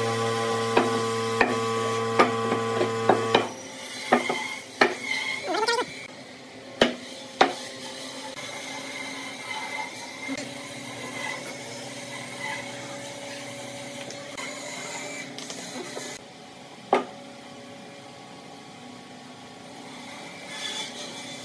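Wooden boards handled on a wooden workbench: sharp knocks and clatter as pieces are set down and fitted together. A steady hum runs under the first few seconds and stops; after that the handling is quieter, with a single knock near the end.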